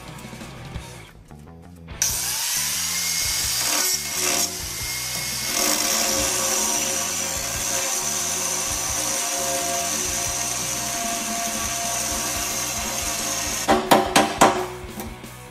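A power tool cutting through a hardened steel bolt nut on a loader bucket's cutting edge: it starts about two seconds in and runs steadily with a high whine, then stops, followed by a quick run of sharp metal knocks near the end. Background music plays underneath.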